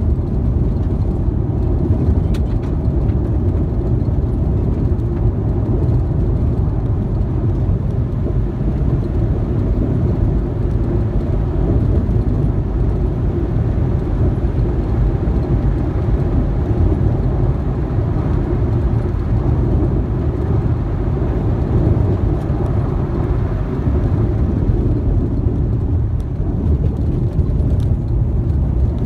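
A car driving along a dirt road: a steady low rumble of the engine and the tyres on the unpaved surface.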